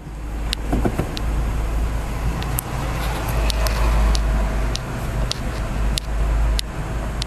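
Steady low rumble of road and engine noise inside the cabin of a 2010 Mercedes-Benz GLK on the move, with scattered sharp clicks.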